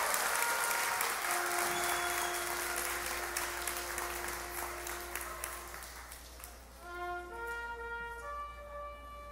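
Applause dying away while a middle school symphonic band sustains one held note. About seven seconds in the band moves into a slow phrase of clear held notes.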